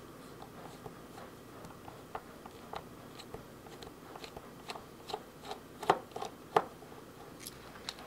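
Small clicks and ticks of a precision screwdriver working tiny screws out of a small metal SSD enclosure, with the parts handled on a work mat. Two louder clicks come about six seconds in.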